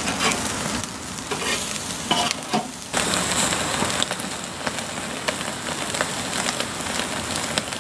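Beef burger patties sizzling over a charcoal fire on a kettle grill, with frequent crackles and pops of fat. In the first few seconds a metal spatula clinks and scrapes on the grill grate; from about three seconds in the sizzle becomes a steadier, brighter hiss.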